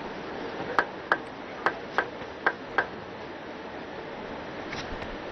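Table tennis ball bouncing and being caught before a serve: six sharp clicks in three quick pairs within the first three seconds, over low steady arena noise.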